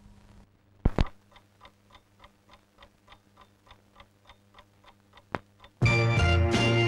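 Faint, regular ticking, about three ticks a second, with two sharp clicks about a second in and another shortly before the end. Music starts near the end.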